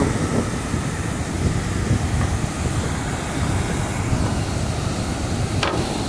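Waterfall and rapids rushing: a steady, dense noise of falling and churning water.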